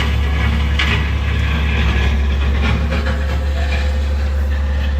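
Diesel engine of compact land-clearing equipment running steadily under load, a loud deep hum, with scattered short crackles of brush and branches being handled.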